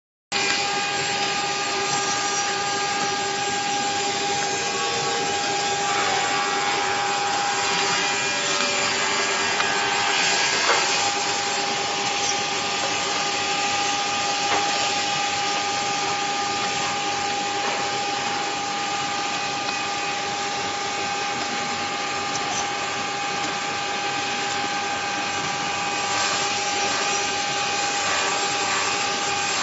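Woodworking machinery running steadily, with a constant motor whine and hiss and a few faint knocks partway through.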